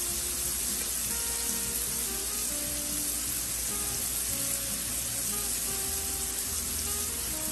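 Shrimp sizzling as they pan-sear in hot oil, a steady sizzle throughout, with background music playing over it.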